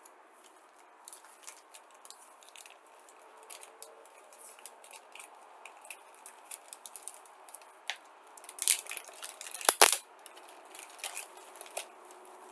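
Small plastic resealable bags and packaging being handled: light rustles and clicks, with a louder crinkling burst a little before the end.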